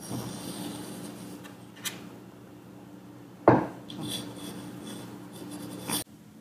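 Scratchy rubbing and rustling of a calico exotic shorthair cat's fur against a tabletop as she rolls about, with one sharp knock about halfway through.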